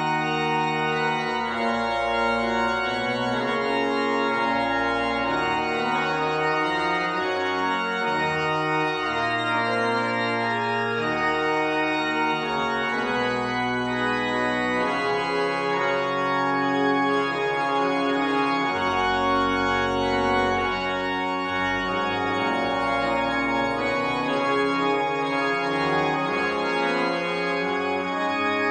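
Pipe organ with split sharps (15 keys to the octave), tuned so that D-sharp and E-flat are different pitches, playing a many-voiced piece: held chords that change every second or so over a moving bass line, at steady loudness.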